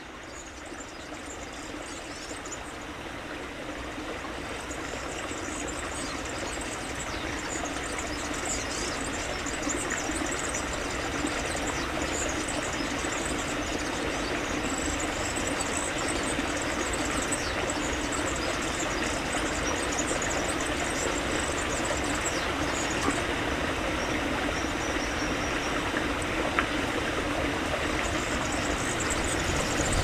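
Small mountain stream flowing over rocks, a steady rushing and trickling of water that fades in over the first several seconds and then holds level.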